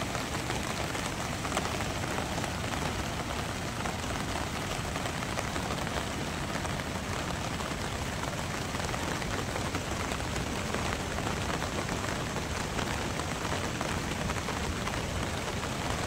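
Steady rain falling: a continuous, even hiss of rainfall.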